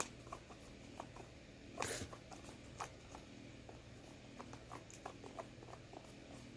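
Slime being stirred with a utensil in a bowl: faint sticky clicks and small wet pops, with a louder squish about two seconds in. The slime is still not fully activated after a lot of activator.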